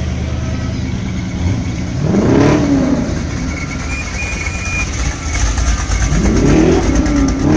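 1970s Buick coupe's engine idling steadily, then revved up and let back down twice, about two seconds in and again near the end.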